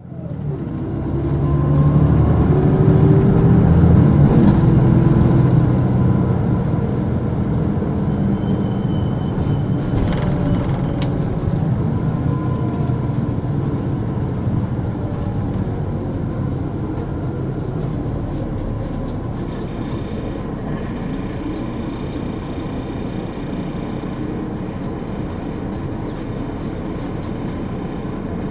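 Volvo D7E 290 hp diesel engine of a Volvo 8700LE city bus, driving through a ZF Ecomat automatic gearbox, working hard for the first few seconds with a high turbo whistle. It then eases into a steadier run.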